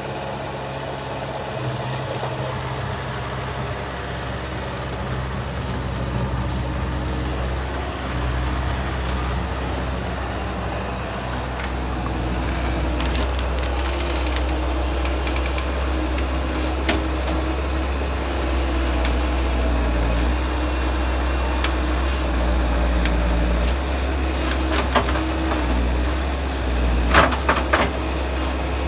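Bobcat skid steer engine running steadily under shifting load. Near the end come a few sharp cracks.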